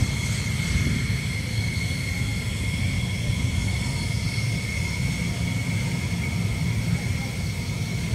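F-16 fighter jet's turbofan engine (GE F110) running at a steady pitch, a low rumble under a high, even whine.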